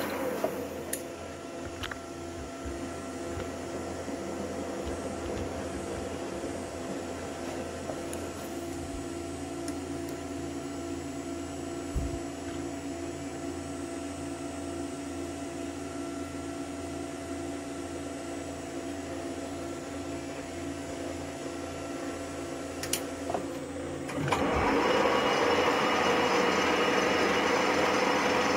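Metal lathe running with a steady hum and a faint, regular pulsing. About 24 seconds in, the tool bites into the metal workpiece and a louder, rougher cutting noise takes over.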